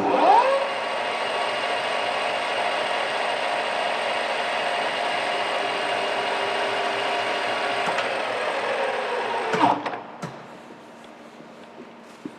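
Takisawa TSL-550 engine lathe's spindle and geared headstock starting with a click and a rising whine. It runs steadily for about nine and a half seconds, then winds down to a stop with a few clicks.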